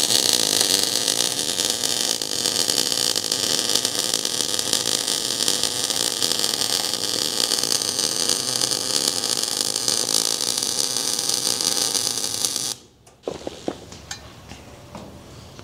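MIG/MAG welding arc crackling steadily as a bead is run on steel tubing, cutting off suddenly about thirteen seconds in when the arc is stopped. A few faint ticks follow.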